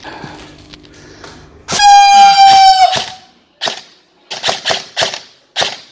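An air horn sounds once, a steady high blast lasting over a second, then a string of sharp cracks of airsoft guns firing, about half a dozen shots in two seconds.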